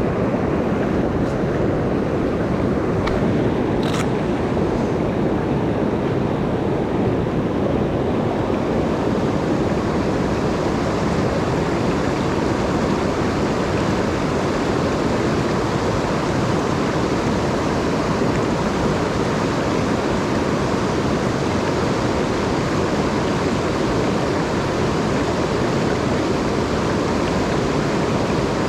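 Rushing water of a rain-swollen mountain stream, a steady, loud rush with no letup. A faint click about four seconds in.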